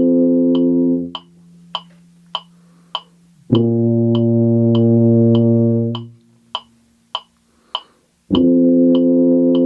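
Tuba playing long sustained whole notes, each held about two and a half seconds with rests between, over a metronome clicking at 100 beats per minute. One note ends about a second in, a lower note sounds from about three and a half to six seconds, and another begins near the end.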